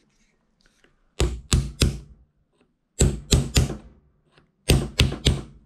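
Hammer striking a nail set, tapping the centre pin of a corroded aluminium hinge rivet down into the hatch lid: nine sharp taps in three quick groups of three.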